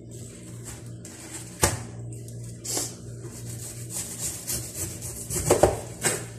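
Kitchen knife cutting through a head of cabbage on a countertop: a sharp knock about a second and a half in, then a run of short sawing strokes through the leaves, loudest near the end.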